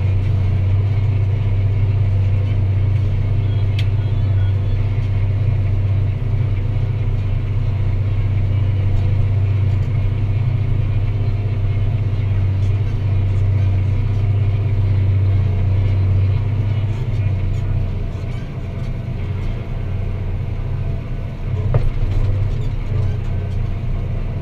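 Deutz-Fahr Agrotron 165 MK3 tractor's six-cylinder diesel engine running steadily under load while pulling a plough, a deep even hum that eases slightly for a few seconds past the middle.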